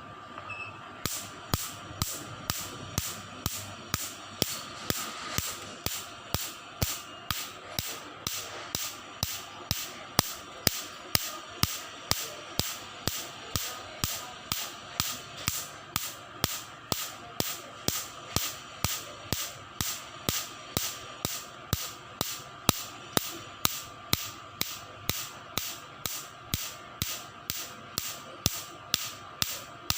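Repaired cosmetic laser machine firing pulse after pulse, a sharp snap about two and a half times a second that starts about a second in, over a steady hum. The machine is firing normally after its repair.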